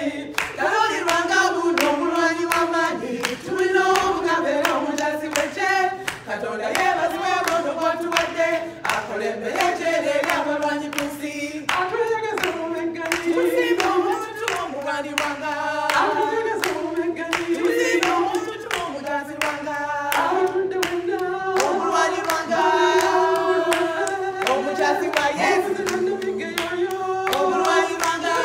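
A group of women singing a song together, with hand clapping keeping a steady beat.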